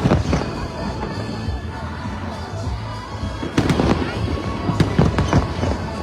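Fireworks shells bursting in bursts of sharp bangs and crackle, one at the start and a cluster a few seconds in, over music with steady low bass notes.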